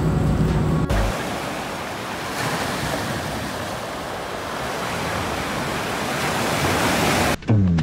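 Small waves breaking and washing over a pebble beach in the wind: a steady rushing hiss that swells slightly a couple of seconds in.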